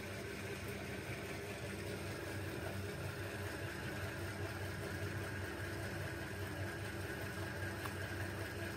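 A steady low mechanical hum with no change over the few seconds.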